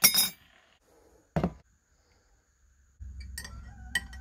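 Teaspoon clinking against a ceramic mug as it stirs a hot drink: a quick run of short ringing clinks from about three seconds in, over a low hum. Before that, a brief sharp clatter at the very start and a dull knock about a second and a half in.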